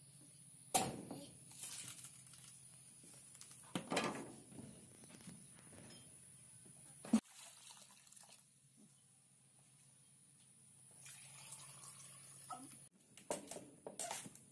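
A machete chopping into the husk of a green young coconut, a few sharp strikes in the first half, then coconut water being poured into a plastic bowl.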